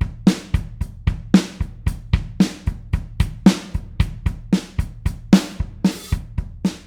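Acoustic drum kit playing an alternative-rock beat: kick, snare and hi-hat in a steady pattern of about four hits a second, with a cymbal crash roughly once a second.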